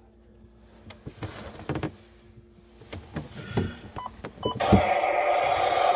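Knocks and clicks from handling the under-sink plumbing, then a thump and water starting to rush steadily through the newly connected faucet supply lines once the supply is turned on.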